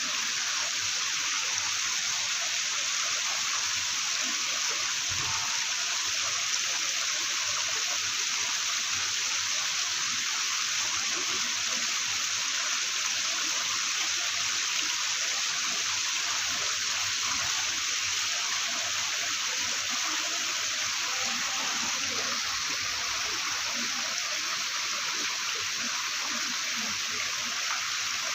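Small waterfall splashing steadily into a small pond, a constant rush of falling water.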